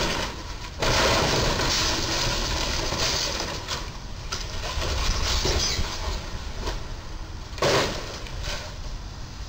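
Rooftop air-conditioner units on a Sabre camper crunching and scraping against a low railway bridge's crash beam as they are torn off. Broken pieces clatter and knock onto the road, with a last loud bang near the end.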